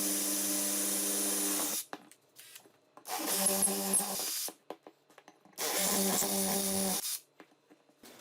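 Electric drill motor running in three short bursts with a steady whine, switched off after each: once just under two seconds in, again about a second and a half later, and again near the end.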